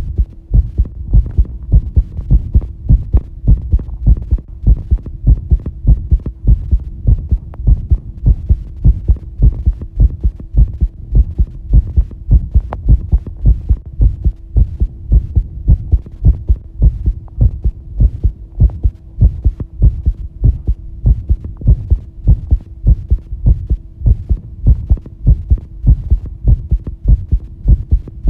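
A fast human heartbeat: regular, evenly spaced low thumps, over a faint steady hum.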